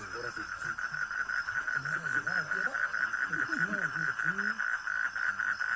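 A steady, rapidly pulsing trill of calling animals, such as frogs or insects at a pond, growing a little louder about two seconds in, with faint talking in the background.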